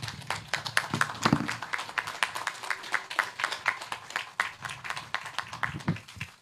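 Audience applauding: a crowd clapping steadily, with the clapping stopping at the very end.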